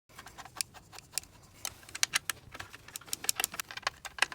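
Irregular light clicks and clacks of hard plastic and metal computer parts being handled, several a second.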